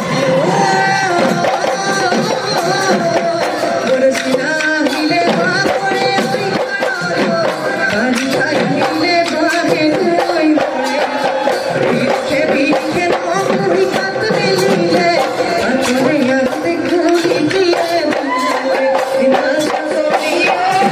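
Bihu folk music: dhol drums beating steadily under singing, with no break.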